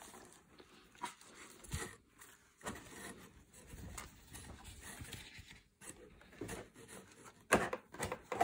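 Cotton T-shirt being unfolded by hand, the fabric rustling and brushing in irregular soft strokes, with a louder rustle near the end as it is held open.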